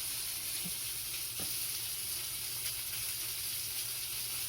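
Steady high hiss with a low hum underneath.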